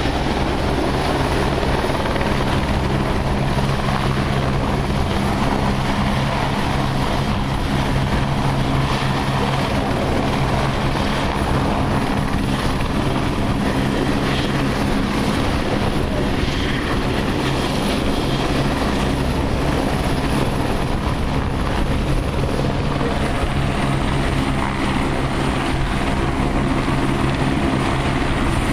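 Eurocopter AS350 Écureuil helicopters running close by, a loud steady rotor and turbine sound. A faint high turbine whine dips slightly in pitch about two-thirds of the way through.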